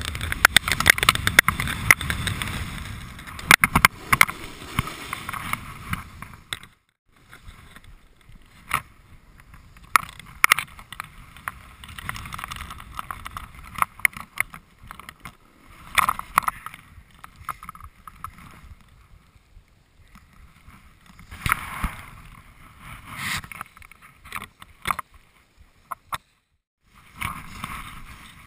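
Snowboard sliding and scraping over snow, a rushing hiss full of crackles and scratches that comes in irregular surges as the edges bite. It drops out briefly about seven seconds in and again near the end.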